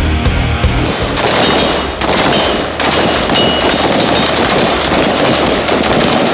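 Rapid, overlapping gunfire from rifles and pistols in dense runs, broken by short gaps about two and three seconds in.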